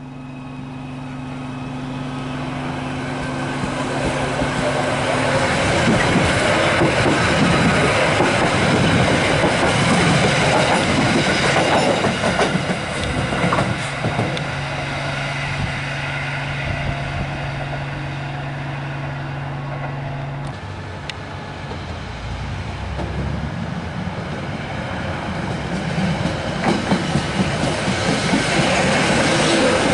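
Merseyrail Stadler Class 777 electric multiple units running past at close range: wheels clattering over the rail joints, a steady low hum from the train at times, and the noise building as each train nears. The sound changes abruptly about two-thirds of the way through as another train passes.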